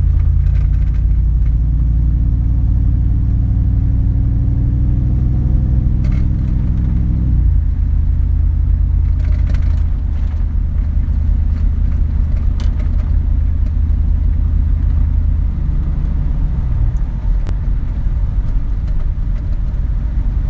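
Truck's V8-style exhaust, straight-through with dual X-pipes and no resonators, heard from inside the cab as the truck pulls away and cruises at low speed under light throttle. It gives a steady deep drone whose pitch drops about seven seconds in, as the automatic transmission upshifts, and changes again near the end.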